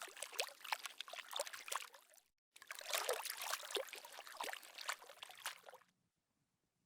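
Water trickling and babbling, like a small stream, at a low level. It breaks off for a moment a little after two seconds, resumes, and stops about six seconds in.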